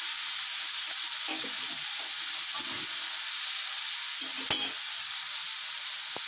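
Cabbage and capsicum sizzling in hot oil in a kadhai as they are stir-fried, with a utensil scraping through the vegetables a few times and a sharp clink against the pan about four and a half seconds in.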